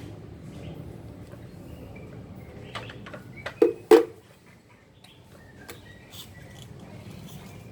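Two sharp knocks in quick succession about halfway through, from the tested power-tool battery charger being handled, over a low steady background hum with a few faint bird chirps.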